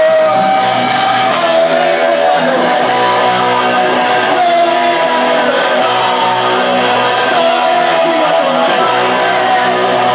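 Punk rock band playing live: electric guitars strumming the song's opening, loud and steady.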